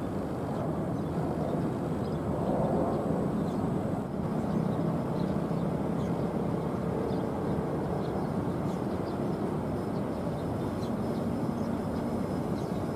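Jet engines of a Citilink Airbus A320 on final approach, a steady low rumble with a faint held whine, swelling slightly a couple of seconds in.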